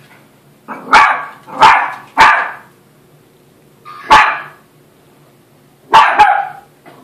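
Small dog barking sharply at a Zhu Zhu Pet toy hamster: three barks about a second apart, one more a couple of seconds later, then a quick double bark near the end.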